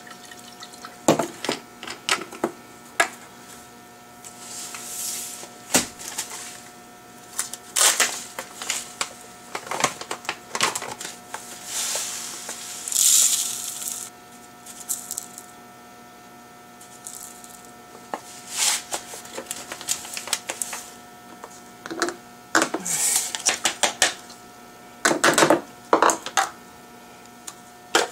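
Clinks and knocks of a glass jar and plastic containers handled on a kitchen counter, with a short hiss of Epsom salt granules poured from a bag into a plastic cup about two-thirds of the way through.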